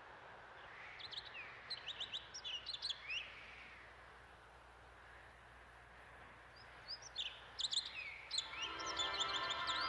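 Songbirds chirping in two bursts of quick, high, sliding notes over a faint steady hiss. Music fades in near the end.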